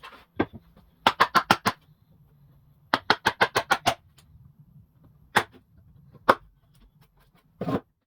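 A series of sharp knocks, as when a bench is put together from larch offcuts: two quick bursts of about six and about eight strikes, then three single knocks spaced apart.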